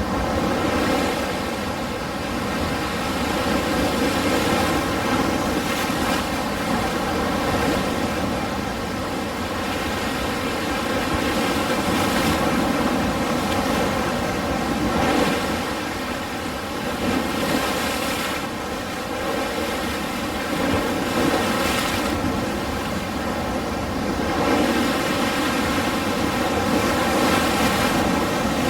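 Ocean surf: a continuous wash of waves breaking and running up the shore, with a wave crashing louder every few seconds. A faint steady hum runs underneath.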